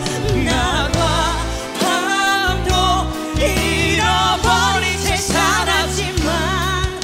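A female and a male singer performing a plaintive Korean pop ballad as a duet over band accompaniment, with wide vibrato on the held notes.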